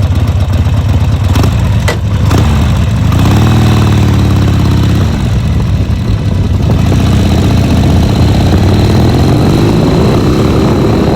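Harley-Davidson motorcycle's V-twin engine running loud, its pitch rising as it revs up about three seconds in and again near the end. A few sharp clicks come about two seconds in.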